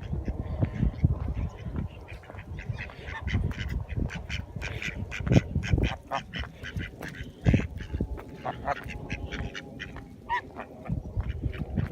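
A swan honking: a long run of short calls in quick succession, over a steady low rumble.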